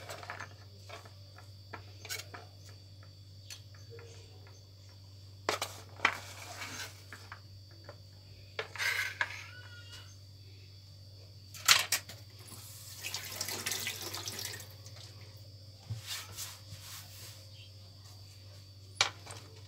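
Light knocks and clatter of a plastic cutting board, plates and fruit slices being handled on a kitchen counter, with a few seconds of rushing noise a little past the middle, over a steady low hum.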